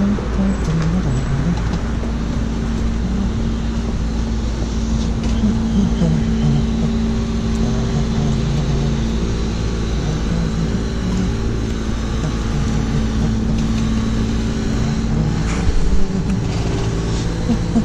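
Road traffic on a city street: cars and vans running past and idling in a steady rumble. A short knock stands out about 16 seconds in.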